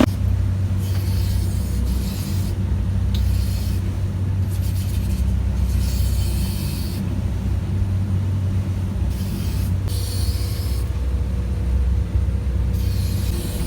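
A large engine running with a steady low rumble, with bursts of hiss coming and going over it every second or two.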